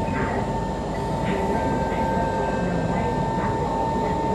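Kawasaki C151 metro train running at a steady speed, heard from inside the car: a continuous rumble with a steady high tone held throughout.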